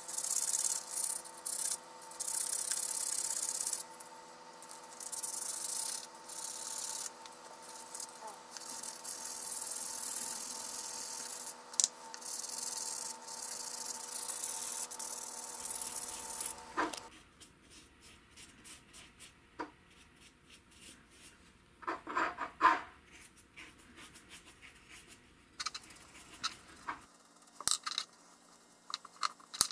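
Sandpaper rubbed back and forth in short strokes over a hand-carved wooden spoon, against a steady background hum. About seventeen seconds in the rubbing stops, leaving scattered light clicks and taps, with a brief louder clatter a few seconds later.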